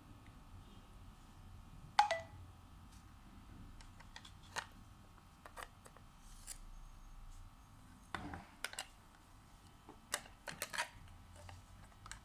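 Scattered light clicks and taps of small tools and phone parts being handled while an iPhone 6s Plus battery is being replaced, the sharpest about two seconds in and a cluster near the end, over a faint steady hum.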